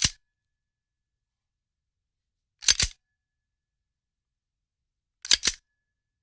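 Handgun action clicking mechanically, a sharp double click of metal parts repeated three times about two and a half seconds apart, with no shot fired.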